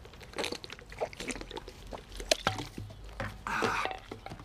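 Someone crunching and chewing a snack from a bag: a run of crisp crackles and clicks, with a louder noisy burst about three and a half seconds in.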